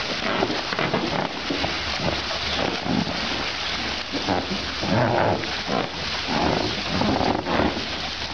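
Baby elephants splashing and sloshing in a water-filled inflatable paddling pool against a steady hiss of spraying water, with several short calls about five to seven and a half seconds in.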